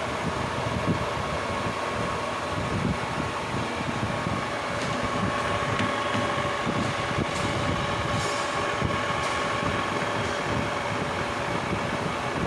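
Lathe running, a steady machine whine over a low rumble, during a facing operation; a few short high-pitched scrapes come about halfway through.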